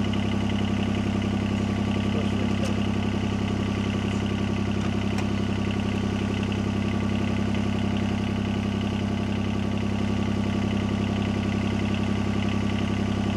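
Diesel engine of a Yanmar tracked machine idling steadily, a constant low drone with an even pulse.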